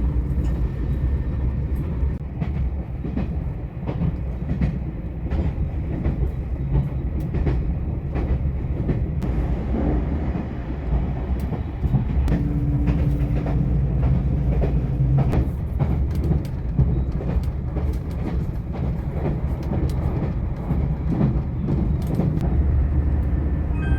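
Train running on the rails: a steady low rumble with frequent short clicks and knocks from the wheels and running gear.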